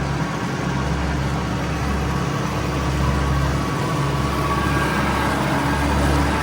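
Tractor engine running steadily at an even pitch.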